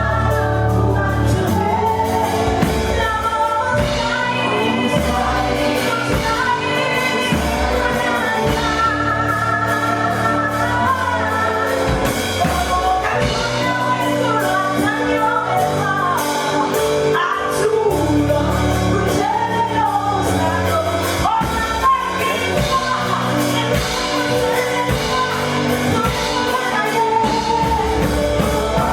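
Gospel worship song performed live: voices singing over a band with a steady beat.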